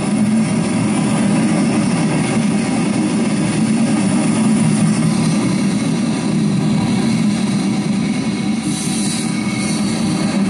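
Coal train's gondola cars rolling past close by: a steady rumble of steel wheels on the rails. A few brighter, hissier moments come in near the end.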